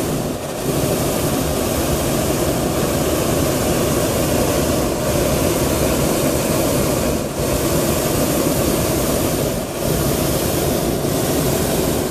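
Hot-air balloon's propane burner firing in one long, steady burn with a few brief dips, heating the envelope to make the balloon climb.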